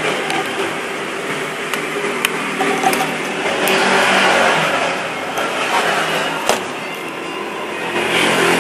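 A steady engine-like hum and hiss that swells about four seconds in and again near the end, with a few sharp clicks on top.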